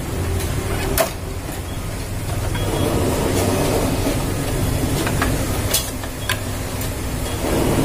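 Sharp clicks and taps of a copier's circuit board and its plastic wiring connectors being handled and fitted back in place: one about a second in and three between about five and six and a half seconds, over a steady low background rumble.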